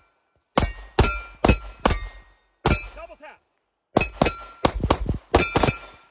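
Rapid pistol fire from several shooters at once: about a dozen sharp gunshots in quick, uneven succession, with a short break about three and a half seconds in. Many shots leave a ringing tone behind them.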